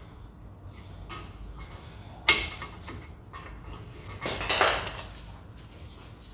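Metal hand tools clanking against a car's brake disc and hub: a single sharp metallic clank about two seconds in, then a longer rattling clatter around four and a half seconds, as a large screwdriver is wedged into the disc's vent holes to hold it while the hub bolt is loosened.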